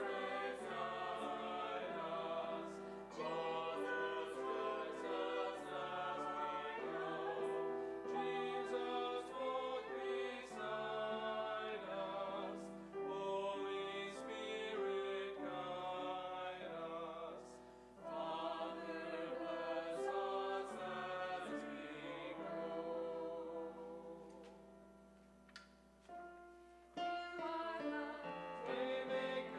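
Choir singing sacred music in sustained chords, the notes shifting every second or so; it grows quiet for a few seconds near the end, then picks up again.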